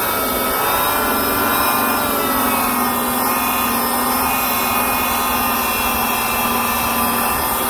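Electric rotary buffer with a wool pad running steadily, polishing compound on a plastic headlight lens; a steady motor whine whose pitch wavers slightly.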